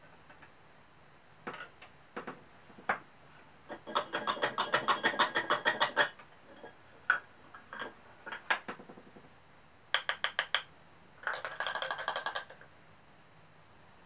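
Wooden and metal magic props being handled on a tabletop: scattered clicks and knocks, with two runs of rapid, even clicking at about ten a second that ring slightly, one about four seconds in and one near the end.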